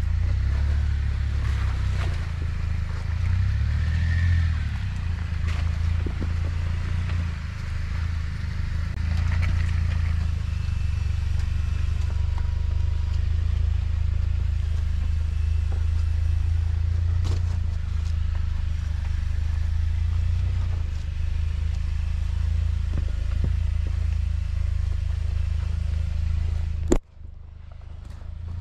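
Jeep Wrangler Rubicon engine running steadily at low trail speed, with scattered clatter and scrapes from the rough off-road track. Near the end a sharp click and the sound cuts out briefly.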